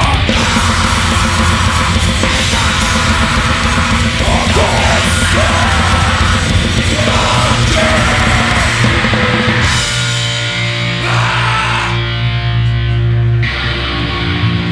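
Heavy metal band playing live: fast drums with cymbals, distorted electric guitars and sung vocals. About ten seconds in, the drumming drops away and held guitar chords ring on.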